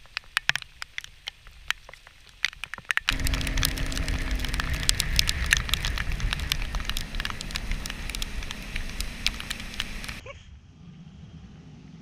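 Raindrops ticking on the boat and camera, then from about three seconds in the loud, steady rush of a bass boat running at speed across the lake, with wind and rain hitting the camera. It drops suddenly to a faint low hum near the end.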